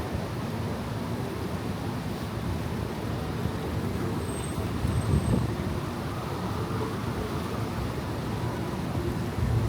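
Urban street ambience: a steady wash of road traffic noise, with a louder low rumble swelling about five seconds in.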